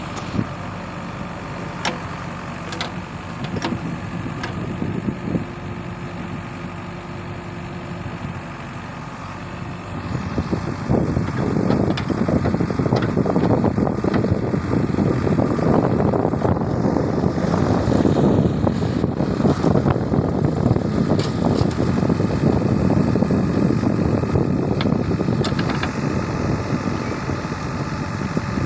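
JCB 3DX backhoe loader's diesel engine running, at first steadily and then, about a third of the way in, louder and rougher as the backhoe works, staying up for the rest. A few short sharp knocks come through over it.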